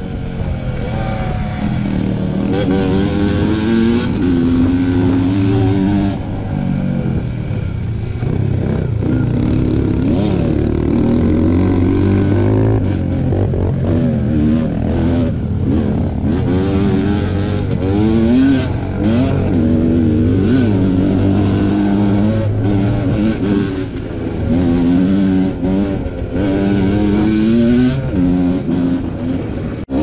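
Kawasaki KMX125 two-stroke single-cylinder engine, fitted with a VForce 3 reed valve, revving up and down over and over while riding a rough dirt trail, its pitch rising and falling with each throttle opening and gear change.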